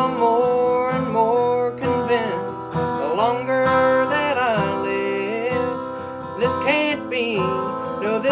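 A man singing a drawn-out melodic line that slides between notes, with a strummed steel-string acoustic guitar underneath.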